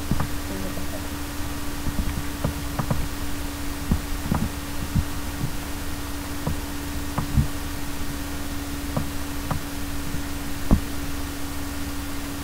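A steady electrical hum and low rumble, with irregular soft clicks of a computer mouse and one louder knock near the end.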